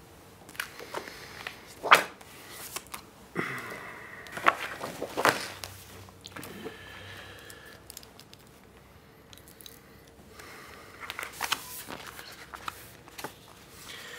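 Small handling noises of paper and a pair of glasses: scattered soft rustles and short clicks. They come in two clusters with a lull of a few seconds between them, and the sharpest click is about two seconds in.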